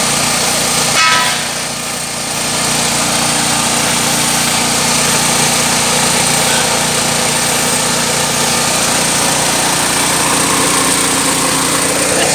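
Small petrol engine driving a pellet-making machine, running steadily. About a second in there is a short knock and the sound dips briefly before settling back.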